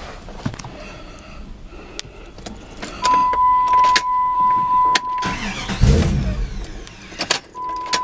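Keys clicking in the ignition of a 1998 Jeep Grand Cherokee 5.9, a steady electronic warning beep lasting about two seconds, then the 5.9-litre V8 cranking and catching about six seconds in.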